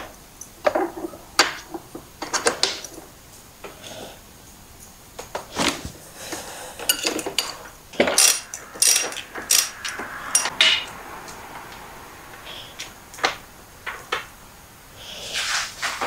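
Metal hand tools clicking and clinking on a motorcycle's steering stem nut: a breaker bar and then a ratchet with socket working the nut loose and off the top triple clamp. The clicks are irregular and come thickest about halfway through.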